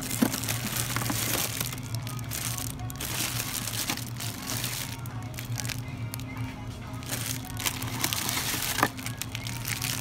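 Background music with plastic produce bags crinkling as they are handled. A sharp click comes just after the start and another near the end.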